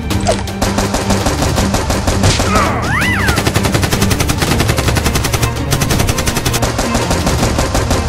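Rapid, continuous machine-gun fire: a sound effect of real automatic gunfire laid over toy-blaster shooting, with shots in quick even succession.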